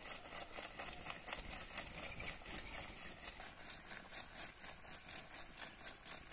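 A wire hand whisk spun rapidly back and forth between the palms in a metal kadai of boiled greens, churning and mashing them to a thick paste with a fast, even swishing, about four or five strokes a second.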